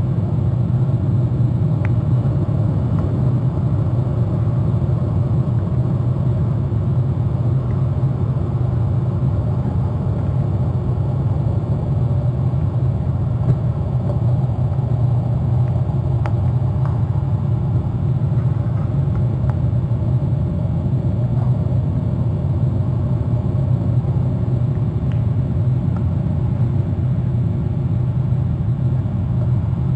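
A steady low rumbling noise throughout, with a few faint short ticks on top of it.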